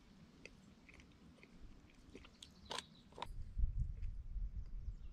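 A person eating porridge with a spoon close to the microphone: soft chewing and small spoon clicks, with one sharper click a little before three seconds in. From about three and a half seconds a low, uneven rumbling noise takes over and is the loudest sound.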